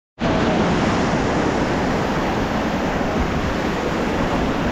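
Rushing whitewater of a mountain river, a steady, even rush of water noise that starts just after the opening.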